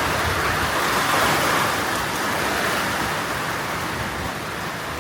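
Heavy rain pouring down in a thunderstorm, a loud, steady hiss.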